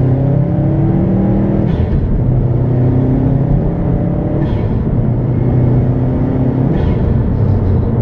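2018 Subaru STI's turbocharged 2.5-litre flat-four, on a Cobb stage 3 tune, accelerating hard under boost, heard from inside the cabin. The engine note climbs, drops at gear changes and climbs again. It pulls without bucking now that the AEM fuel pump's displaced O-ring has been replaced.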